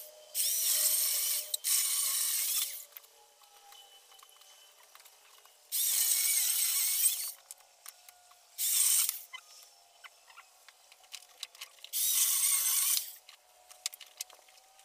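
A power saw cutting firewood in short bursts: five runs of about one to one and a half seconds each, with quieter gaps and small clicks between them.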